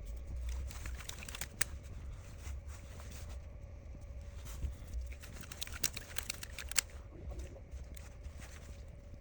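Handling noise at a repair bench: scattered small clicks and brief rustles, with a low rumble and a faint steady hum underneath.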